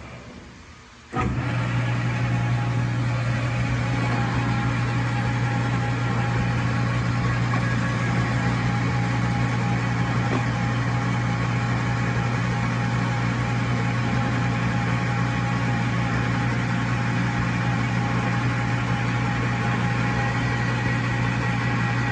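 Single-phase electric motor and belt drive of a JET 12x40 metal lathe, starting up abruptly about a second in after a brief lull and then running steadily with a strong low hum.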